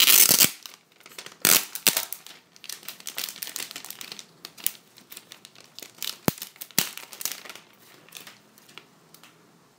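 Packaging of an Apple Wireless Keyboard being opened by hand: crinkling and tearing, loudest at the start and again about a second and a half in. Scattered rustles follow, with two sharp knocks between six and seven seconds in, and it dies down near the end.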